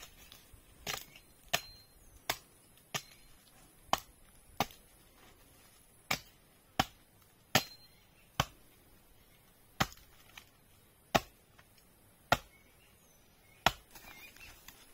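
Wood being chopped: about fifteen sharp strikes of a blade on wood, roughly one a second, with short pauses between runs of blows.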